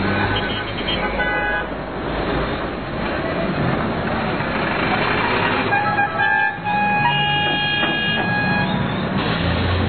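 Busy street traffic with car horns honking: a few short toots about a second in, and a longer horn blast from about six to nearly nine seconds in.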